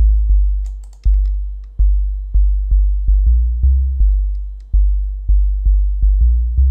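Electronic sub-bass line of an ambient jungle track played on its own: about a dozen very deep held notes that step between pitches, each starting with a sharp attack and fading before the next.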